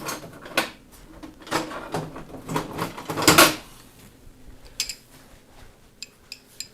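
Metal knocks and clunks of a starter motor being handled and clamped in a bench vise with soft jaws: several knocks in the first half, the loudest about three and a half seconds in, then a few light clicks near the end.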